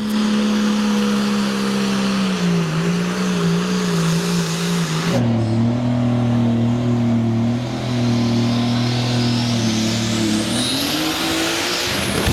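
An engine running steadily, with its pitch stepping up or down a few times. Near the end a rising-then-falling rush, like a vehicle passing.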